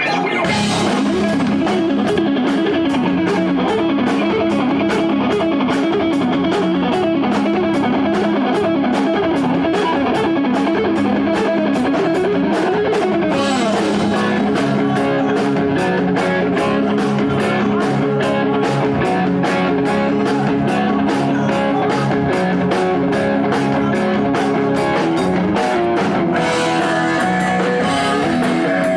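Rock band playing live: electric guitars over a drum kit keeping a steady beat. The steady beat breaks off near the end.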